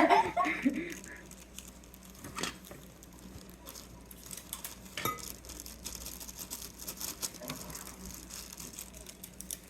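Light clicks, taps and rustles of kitchen items being handled while baking, with a few sharper knocks about two and a half and five seconds in.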